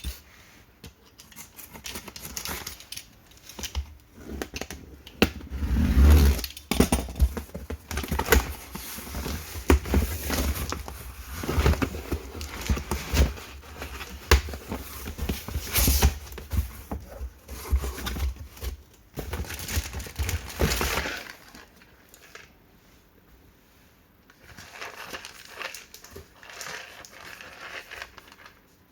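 Plastic snack packaging crinkling and rustling as it is handled and opened, with sharp crackles and low bumps, heaviest in the middle. It thins to lighter rustling near the end.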